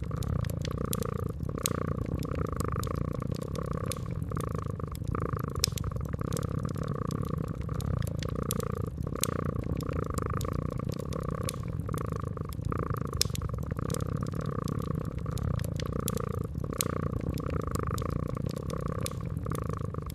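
A domestic cat purring steadily, the purr swelling and fading in regular waves with its breathing. Behind it a fireplace crackles, with frequent sharp pops.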